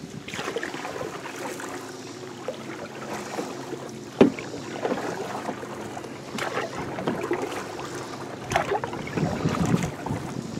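Canoe paddle strokes pulling through lake water, a splash about every two seconds over a steady wash of water. There is a sharp knock about four seconds in.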